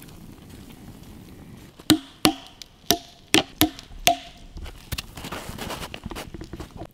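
Wood being chopped: six sharp strikes over about two seconds, each with a short ringing note, starting about two seconds in. A lighter irregular crackle of wood follows.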